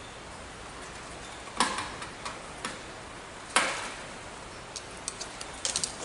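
Sharp clicks and taps of work on the terminal screws of a horn strobe's plastic mounting base as a resistor lead is fastened under a screw. There are two louder clicks, one about a second and a half in and one about three and a half seconds in, with a quick run of small ticks near the end.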